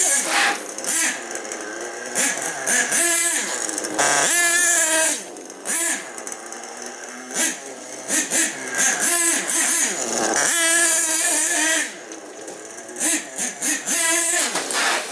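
HPI Savage X 4.6 nitro monster truck's 4.6 cc big-block glow engine revving hard and dropping back, over and over, its high buzzing pitch rising and falling with each burst of throttle. The engine is on its fourth tank of break-in, with the needles left at the factory flush setting.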